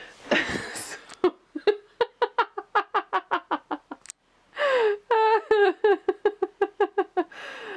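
A woman laughing hard in quick rhythmic bursts, about six a second, in two long runs with a brief pause for breath between them.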